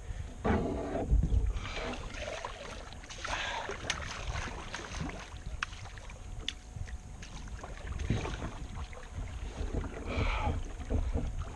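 Water sloshing and splashing against a kayak's hull in irregular bursts, over a steady low rumble of wind on the microphone.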